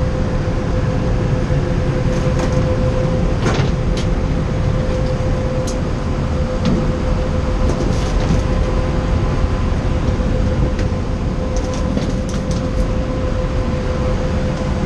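Steady, loud drone of HVAC machinery around a 60-ton water-cooled package unit, with a constant hum and a few faint clicks.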